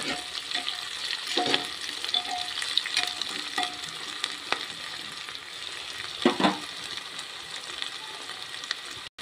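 Sliced onions sizzling steadily in hot oil in an aluminium pressure cooker, stirred with a metal spoon that scrapes the pot, most plainly about a second and a half in and again past six seconds in.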